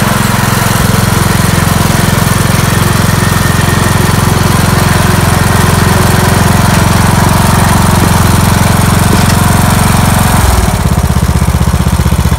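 Riding lawn mower engine running steadily while the mower tows a steel cart loaded with firewood, showing no sign of strain under the load. About ten and a half seconds in, the engine note drops lower and slower.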